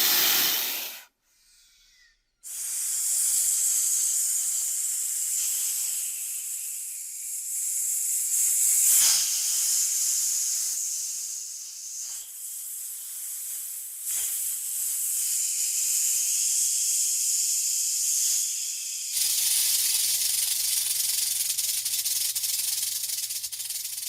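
Snake hissing: a short hiss that stops about a second in, then after a brief pause a long, high, continuous hiss that swells and eases. A faint low hum sits under it for the last few seconds.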